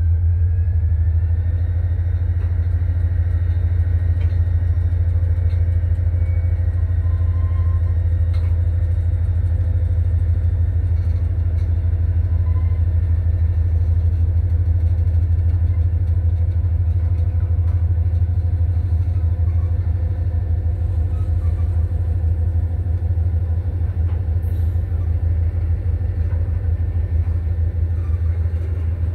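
Covered hopper cars of a freight train rolling slowly past, a steady low rumble with faint high steady tones above it.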